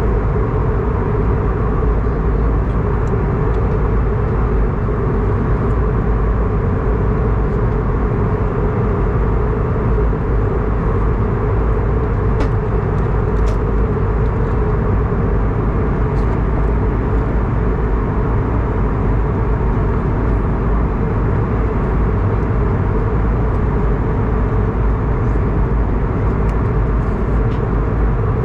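Steady cabin noise of an Airbus A220-300 airliner in flight: a constant drone of its Pratt & Whitney geared turbofan engines and rushing air, with a couple of faint clicks near the middle.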